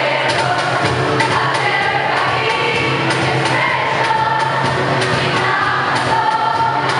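A large group of students singing a jingle in chorus over music with a steady beat.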